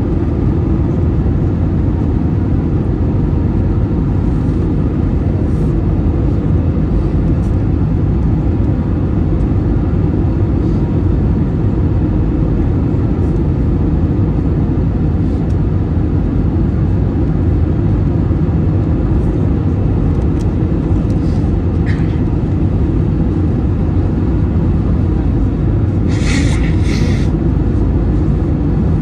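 Steady cabin rumble of an Airbus A321-231 airliner: the drone of its IAE V2500 turbofans and the airflow, heard from inside the passenger cabin. A couple of short clicks come close together near the end.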